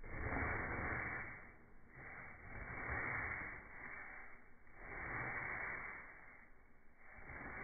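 Slowed-down swishes of a bristle paintbrush dragged over a rough, textured paint surface: four long, low swells of scratchy noise about two seconds apart.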